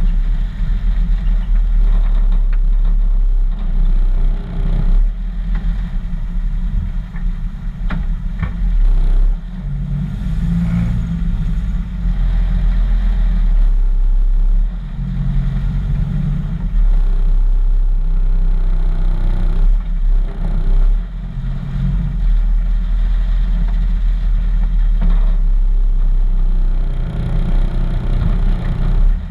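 Custom 1941 Chevrolet truck's engine running, its note rising and falling several times, with heavy wind rumble on the microphone.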